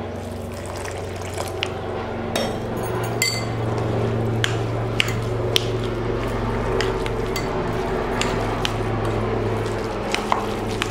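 Water poured from a steel jug into a glass bowl of semolina-and-curd uttapam batter, which is then stirred and worked with a spoon, giving many short clicks of the spoon against the glass. A steady low hum runs underneath.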